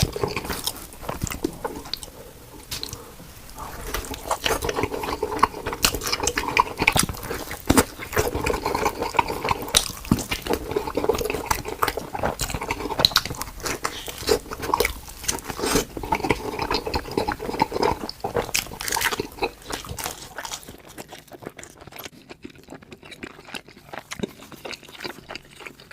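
Close-miked chewing and biting of pizza: wet mouth sounds with many small crunching clicks. It goes quieter for the last several seconds.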